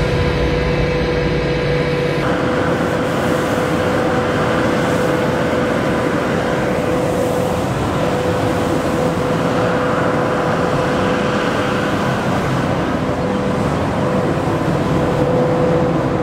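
Diesel engine of a Cat 938M wheel loader working as it raises a loaded bucket to fill a feed mixer wagon. A steady whine runs through the engine noise.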